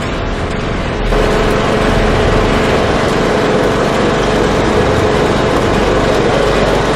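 Riding lawn mower's engine running steadily as the mower drives through the field, growing louder about a second in.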